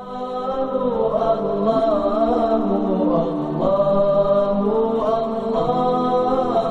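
Background vocal music: voices chanting a slow, unaccompanied melody with no beat, fading in over the first second.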